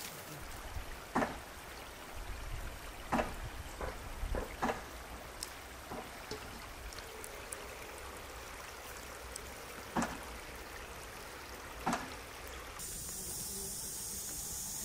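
Outdoor ambience of steady running water with scattered faint clicks and knocks. About two seconds before the end a steady high hiss sets in, from a large pot steaming over a wood fire.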